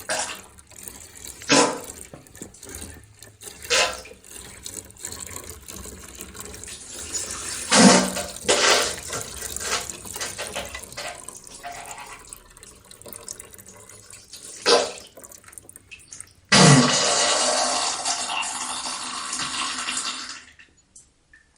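Liquid running and splashing, broken by several sharp knocks and clanks. About seventeen seconds in, a louder steady rush of liquid starts, then stops suddenly about four seconds later.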